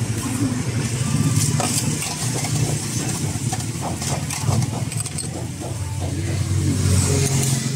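Street traffic: a vehicle engine running close by, its low rumble rising and falling and swelling near the end. Light clicks and clinks of utensils on the stall sound over it.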